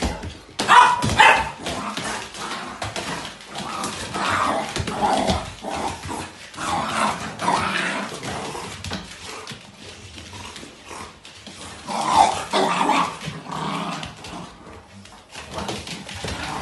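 Dogs barking in repeated bursts, loudest about a second in and again about twelve seconds in.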